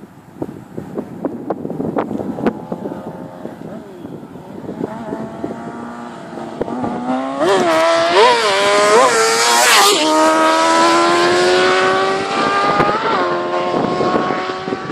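Suzuki GSX-R600's inline-four engine revving, growing louder, with a few quick jumps in revs. The pitch then drops sharply and climbs steadily as it pulls through a gear, dropping again briefly near the end as it shifts.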